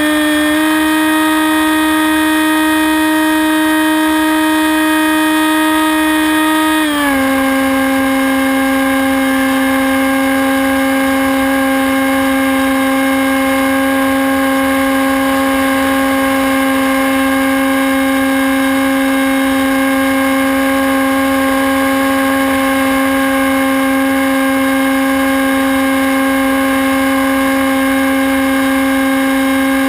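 Electric motor and propeller of a Hawk Sky RC plane whining steadily, heard from a camera on board the plane. The pitch steps down slightly about seven seconds in and then holds.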